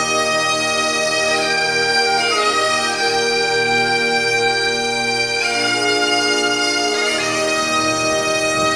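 Bagpipe music: a melody of slow, held notes that change pitch every second or two.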